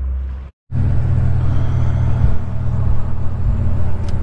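Steady low engine and road drone heard from inside the cab of a moving vehicle. It starts after a brief drop-out less than a second in.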